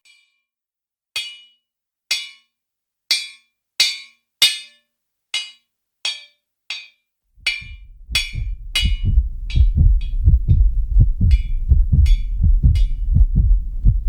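A series of sharp, ringing taps, about one a second and coming a little quicker as they go. About halfway through, a loud, low, pulsing rumble comes in and carries on while the taps grow fainter.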